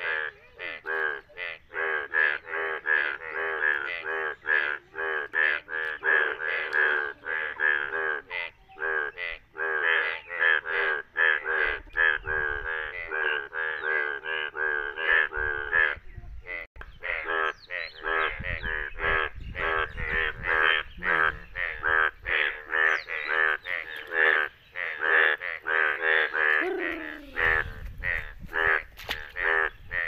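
Yellow breeding-colour male Indian bullfrogs calling in a chorus after the first rains, a continuous run of harsh croaks, about three a second, overlapping from several frogs.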